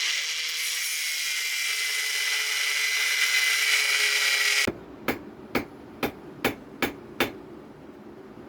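Angle grinder running against steel, a loud hiss with a high whine, that cuts off suddenly a little past halfway. Then about seven hammer blows on metal follow, roughly two a second, each ringing briefly.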